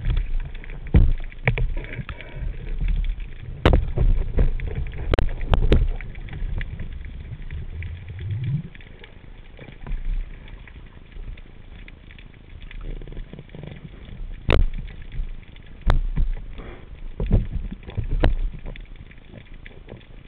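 Muffled underwater sound picked up by a camera in a waterproof housing while spearfishing. There is an uneven low rumble of water moving over the housing, with scattered sharp clicks and knocks.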